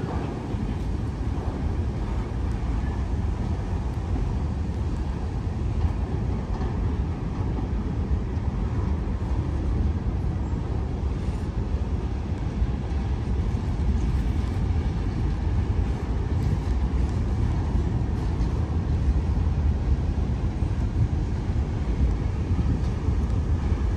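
Freight train cars rolling past with a steady low rumble.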